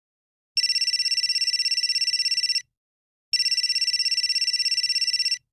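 Cell phone ringing: two trilling, high-pitched rings of about two seconds each with a short pause between them, each ring a rapid warble of steady tones.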